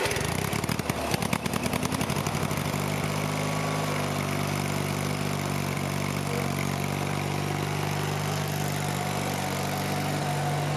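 Murray Select Twin lawn tractor's 17 hp Briggs & Stratton twin-cylinder engine starting up, running with a fast rough chatter for about two seconds and then settling into steady running as the tractor drives with the mower deck disengaged.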